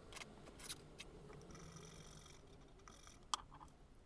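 A few faint, sharp clicks from small parts being handled, the loudest about three seconds in.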